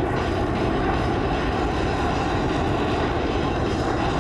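Jet noise from a Boeing E-767 AWACS's two turbofan engines: a steady, even rush as the aircraft banks away overhead.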